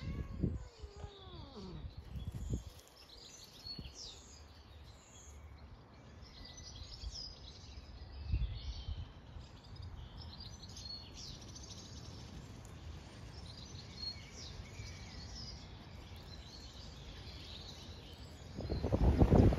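Small birds singing and chirping, with a couple of short falling cries about a second in and wind buffeting the microphone near the end.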